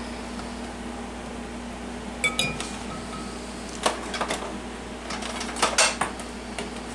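A few clinks and knocks of kitchen utensils and a mixing bowl being handled. One clink about two seconds in rings briefly, and several come close together near the end, over a steady low hum.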